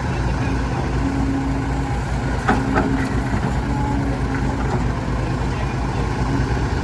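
A vehicle's engine running steadily with a low hum, and a couple of sharp clicks about two and a half seconds in.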